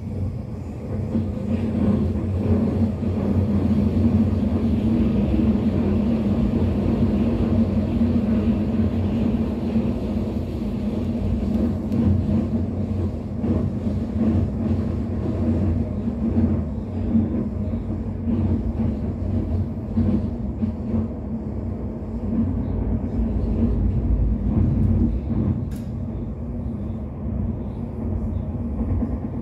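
An electric commuter train running at speed, heard from inside the carriage: a steady rumble of wheels on rail with a low hum and a few faint clicks.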